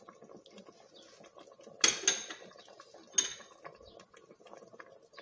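Metal spoon knocking against an aluminium cooking pot as spice is tipped in: two sharp clinks close together about two seconds in and a third about a second later, over faint background noise.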